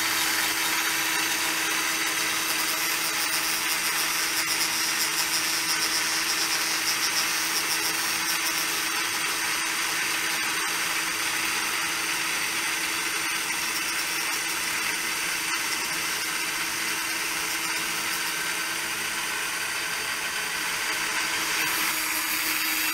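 Motor-driven cutter of a rose engine lathe spinning steadily as it cuts a deeper pass into a wooden workpiece, a constant high whine with a faint steady hum beneath.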